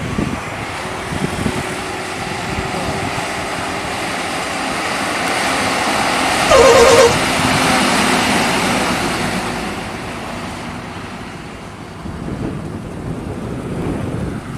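A bus passes, its engine and tyre noise swelling and then fading away. About six and a half seconds in comes a short, loud blast of a multi-tone musical 'telolet' bus horn, warbling rapidly.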